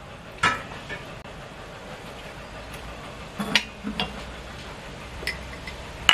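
A metal spoon clinking lightly against a stainless steel bowl and a sauce bottle a few times, about half a second in and again around three and a half to four seconds in, over a steady low hiss.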